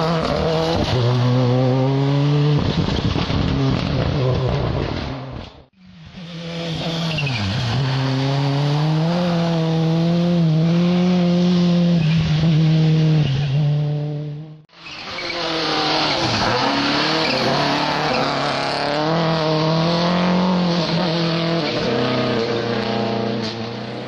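Turbocharged World Rally Car engines driven hard through wet tarmac bends, the first a Ford Escort WRC. The engine note rises and falls as the drivers lift and accelerate. The sound drops out briefly twice, about six and fifteen seconds in, and a different car's engine takes over each time.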